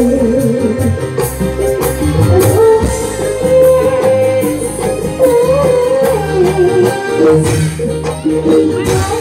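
Live jaranan (East Javanese kuda lumping) accompaniment music: a wavering melody line over steady low notes, punctuated by repeated percussion strikes.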